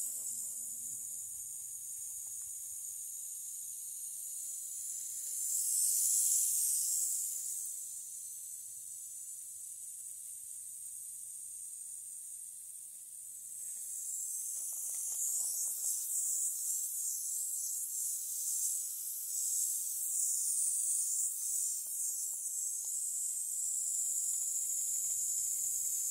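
High-pitched insect chorus, a steady shimmering buzz that swells about six seconds in and grows louder and busier from about halfway through.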